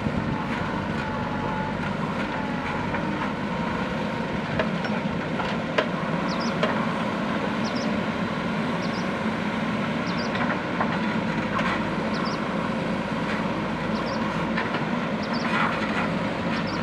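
JCB backhoe loader's diesel engine running steadily under work, with occasional sharp metallic clanks from the machine.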